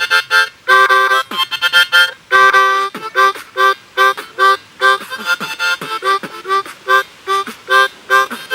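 Harmonica beatbox: a diatonic harmonica played in short, choppy chords in a driving rhythm, with a few longer held chords and low percussive beatbox hits breathed through the instrument between the notes.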